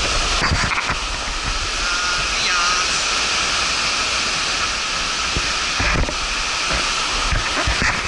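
Steady rushing of small lake waves breaking on a sandy shore, mixed with wind buffeting the camera's microphone in irregular low rumbles.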